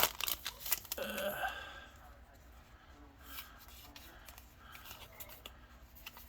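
Trading cards being flicked through and slid against each other by hand: a quick run of crisp clicks and snaps in the first second, then fainter, softer handling.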